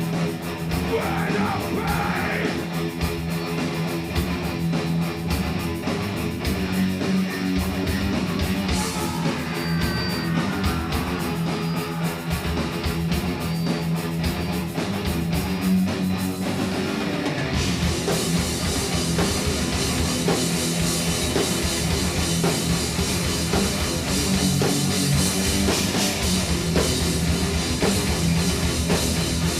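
Thrash metal band playing live: distorted electric guitars over a drum kit, loud and continuous. About halfway through the sound gets much fuller and brighter, as the band comes in harder with the cymbals.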